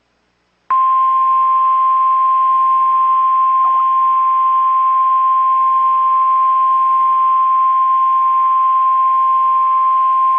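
NOAA Weather Radio 1050 Hz warning alarm tone: a single loud, steady tone that starts about a second in and holds for about ten seconds over faint radio hiss. It signals that a warning message, here a tornado warning, is about to be read.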